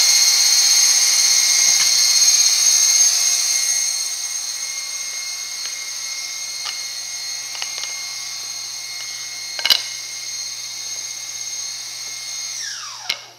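High-speed boring spindle of an Omal Velox CNC bore-and-insert machine whining steadily at a high pitch, then falling in pitch and dying away near the end as it spins down. A few sharp knocks, the loudest about ten seconds in.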